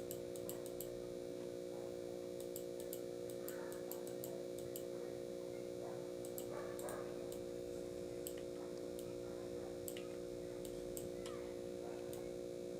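Computer mouse clicking now and then, light irregular clicks over a steady low hum.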